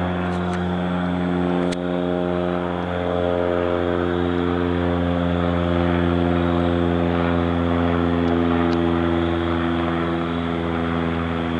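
An engine droning steadily at a constant pitch, a low hum with a haze of noise over it.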